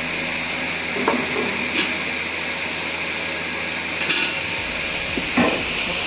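Metal-melting furnace running with a steady hiss and a high, even whine, with a few scattered knocks and clinks of metal scrap.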